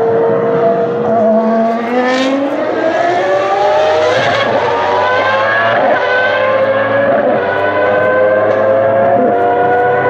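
Arrows A22 Formula One car's V10 engine accelerating hard out of a corner. Its high-pitched wail rises and drops back several times as it shifts up through the gears.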